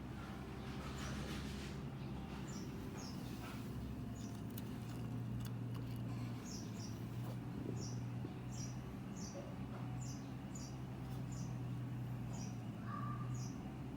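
Steady low drone of an excavator's engine running, with short high bird chirps repeating every second or so over it.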